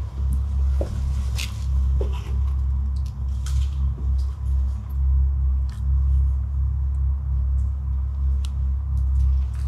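A loud, uneven low rumble on the microphone, with scattered light clicks and crunches of footsteps on a littered tile floor.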